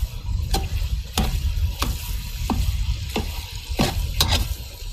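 A long-handled ladle stirring goat meat and vegetables frying in a huge wide metal pan, with a sharp scrape or knock against the pan about every half second, about seven strokes, over a steady low rumble.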